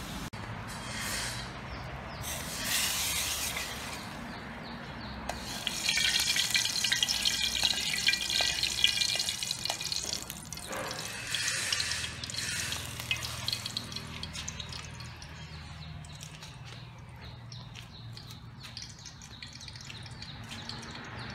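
Fried garlic tipped from a wok into a pot of fish sour soup: a loud spell of watery sizzling and splashing about six seconds in, lasting a few seconds, then quieter liquid sounds from the pot.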